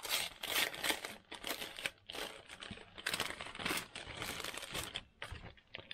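Plastic parts bag crinkling and rustling in the hands as it is opened, an irregular run of crackles that dies away near the end.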